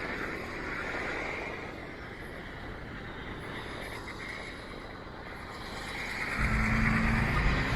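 Street traffic passing. About six seconds in, a louder low rumble sets in as a large vehicle comes close.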